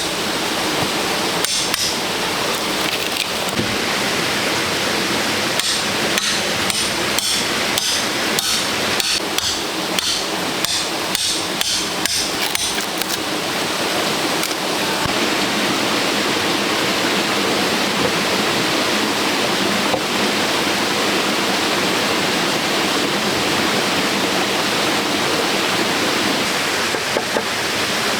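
A run of sharp knocks, about one or two a second, for the first half or so, over a steady hiss; the knocks stop and the hiss carries on alone.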